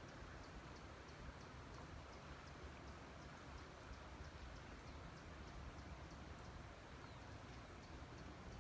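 Faint rain-and-nature ambience: a steady soft hiss with a small, regular high tick about three times a second.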